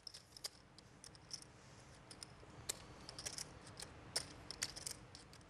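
Faint, irregular clicking of clay poker chips being handled and riffled at the table, with many small clicks bunched in clusters.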